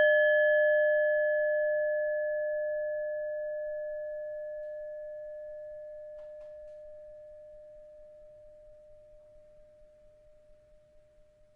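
A singing bowl struck once, ringing out on a single steady note with a few higher overtones that die away first, the whole tone fading slowly over about twelve seconds.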